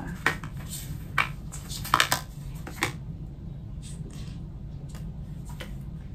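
Hard plastic two-piece iPhone case being handled and fingered: a few sharp clicks and taps in the first three seconds, then fainter ones.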